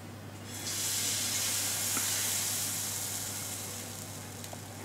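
Dosa batter sizzling as it hits a hot nonstick dosa tawa: a steady hiss that starts about half a second in and slowly dies down.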